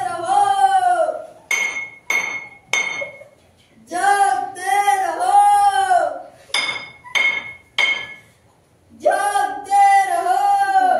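Eerie horror score: a wordless voice sings a short sliding phrase three times. Between the phrases come a few sharp, bright metallic chime strikes that ring briefly.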